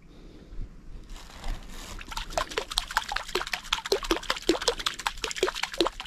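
Rapid small splashes at the water surface around a fishing line. They begin faintly about a second in and thicken into a quick, uneven patter of plinks about two seconds in.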